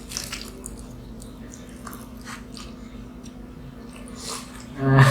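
Close, hurried chewing and biting of mughlai paratha, with small scattered mouth clicks. About five seconds in comes a short, loud vocal sound from the eater's throat. A steady low hum runs underneath.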